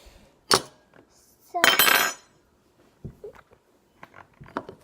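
Clinks and knocks of a utensil against a bowl: a sharp click, a louder clatter about two seconds in, then a few light taps.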